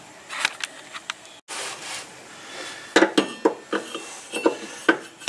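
Hand tools clinking and knocking on steel: a half-inch drive ratchet set against a mower deck's belt idler arm and pulleys. After a few light clicks, a string of sharp, irregular metal knocks comes from about halfway in.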